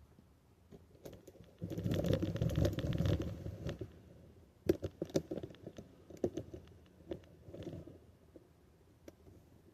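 Small metal and plastic bicycle parts and tools being handled on a workbench: a couple of seconds of dense rattling and clattering, then a run of separate sharp clicks and knocks.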